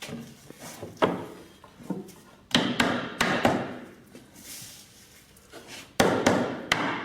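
Hammer blows on wood, knocking a glued mortise-and-tenon joint together: a single sharp knock about a second in, a quick cluster of knocks a little later, and another run of knocks near the end.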